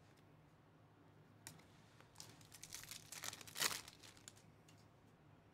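A trading-card pack wrapper is torn open by hand. A faint click comes first, then about two seconds of crinkling and tearing, loudest near the end.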